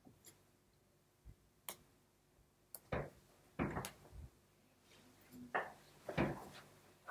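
Soft thumps, slaps and clicks at irregular intervals from hands and forearms striking and brushing each other during sign language signing, with clothing rustle. The loudest come about three, three and a half, and six seconds in.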